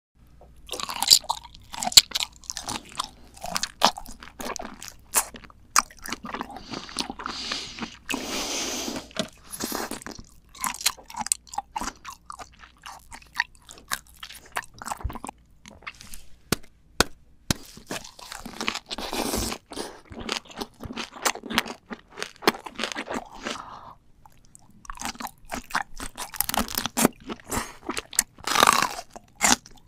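Close-miked eating of large red shrimp: repeated biting and chewing, with many sharp crunches, wet clicks and smacks, and a few longer rustling stretches.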